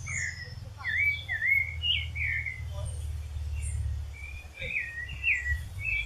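Pale-breasted thrush (sabiá-barranco) singing: a string of short whistled phrases, each a quick up-and-down slur. There is a brief pause about midway before the phrases resume.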